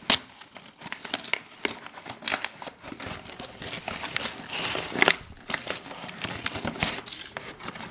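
Cardboard shipping box being torn open by hand: irregular ripping and crackling of cardboard, with a sharp rip just after the start and another about five seconds in.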